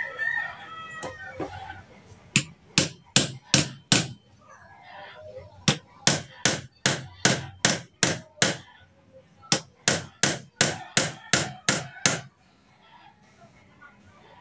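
Hammer blows on a rusted, seized gas-stove valve, in three runs of sharp strikes at about two or three a second (five, then eight, then eight). This is an attempt to knock the stuck part loose.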